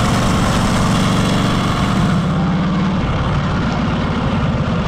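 1937 Harley-Davidson Knucklehead's overhead-valve V-twin engine running as the motorcycle rides along, a steady loud engine note that picks up about two seconds in.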